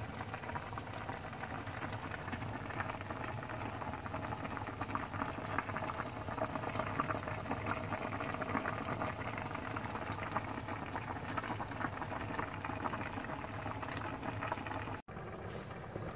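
Pork knuckle broth with tomatoes boiling in a pan: a steady, dense bubbling with fine crackle. It cuts off suddenly near the end, replaced by a quieter steady background.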